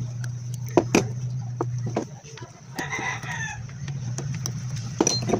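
A chicken calling once, briefly, about three seconds in, over a steady low hum, with a few sharp clicks and taps before and after.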